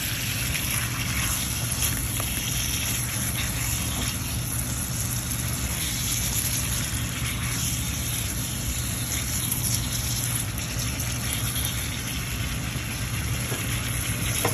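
Pieces of bottle gourd, potato and ridge gourd sizzling steadily in a pan of oil and spices as they are sautéed and stirred with a spatula, over a steady low hum.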